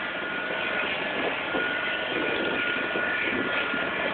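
Ride-on lawn mower engine running steadily as it drives, with a steady high whine over the engine noise.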